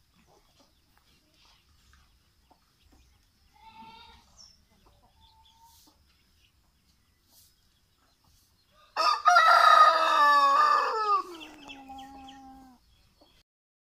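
White broiler rooster crowing once, a loud cock-a-doodle-doo about nine seconds in whose last note slides down in pitch and trails off.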